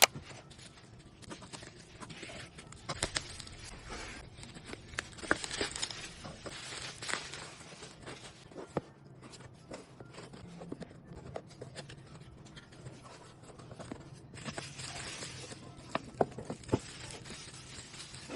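Packaging being unwrapped by hand: tearing and rustling in bouts, with scattered sharp clicks and taps.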